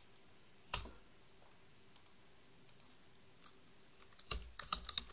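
Computer keyboard keys clicking: one keystroke about a second in, a few faint ticks, then a quick run of keystrokes near the end.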